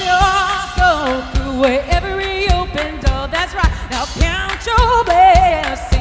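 A woman singing a sustained, wavering melody with vibrato over a pop band backing with a regular drum beat.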